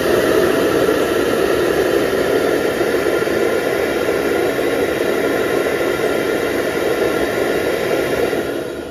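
Self-emptying docking base's suction motor running loud and steady, pulling the dirt out of the robot vacuum's dustbin into the base's bag, then beginning to wind down near the end with a falling whine.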